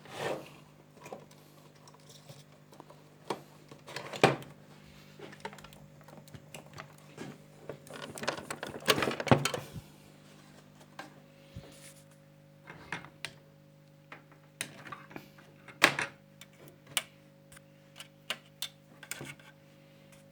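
Irregular clicks, taps and a stretch of rustling about eight seconds in, from small objects being handled on a workbench, over a steady low electrical hum.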